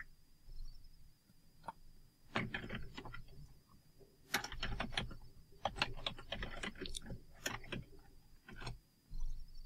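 Computer keyboard typing in short bursts of keystroke clicks with pauses between, over a faint steady high whine.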